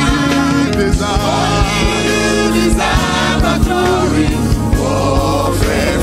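Live gospel praise-and-worship music: voices singing over a band, with a steady beat.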